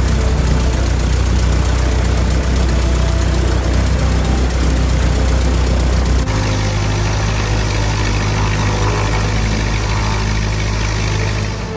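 De Havilland Tiger Moth biplane's piston engine running steadily at low power, propeller turning. About six seconds in, the engine's low tone shifts slightly higher.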